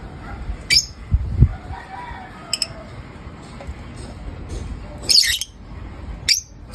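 Caged lovebirds giving short, shrill chirps: four sharp calls spread out, the longest cluster about five seconds in. A dull low thump comes about a second and a half in.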